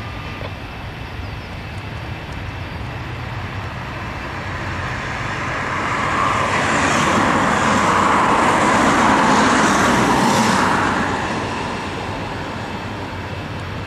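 Boeing 747-400 jet engines at takeoff power as the airliner rolls past: a rushing roar with a high hiss that builds, is loudest for a few seconds past the middle, then fades.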